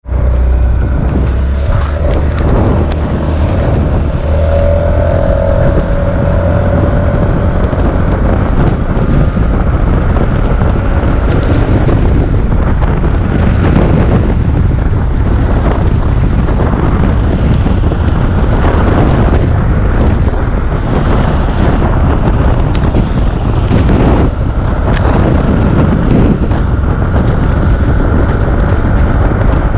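Wind buffeting the microphone of a Honda Forza 350 scooter at road speed, a loud uneven rumble, with the scooter's single-cylinder engine running underneath as it accelerates.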